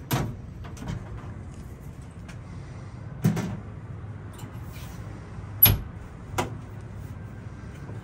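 Front cover panel of a Bosch Greentherm tankless water heater being fitted back onto the unit: four knocks and clunks as the panel is set and pressed into place, the sharpest about two-thirds of the way through, over a steady low hum.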